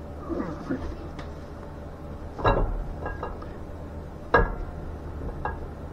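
Steel roller camshaft clinking against the cam bearings and block as it is slid into the engine: two sharp ringing metal clinks, with a few lighter clicks between and after.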